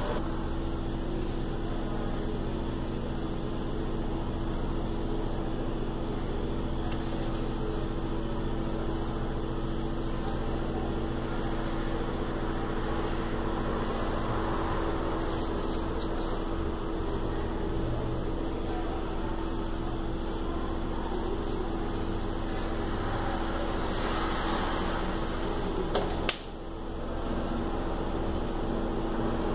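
Steady hum of an electric machine, a motor or fan, running with several constant tones. A single sharp click near the end is followed by a brief dip in the hum.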